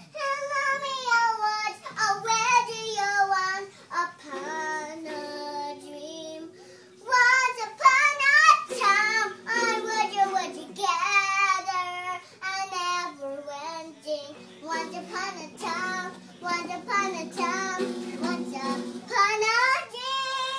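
A young girl singing in a high, wavering child's voice, with long steadier lower notes sounding underneath for much of the time.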